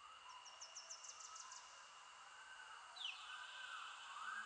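Quiet background music fading in at the start of a track: a run of quick high chirps over a steady high tone and slow swelling tones, with a short falling glide about three seconds in.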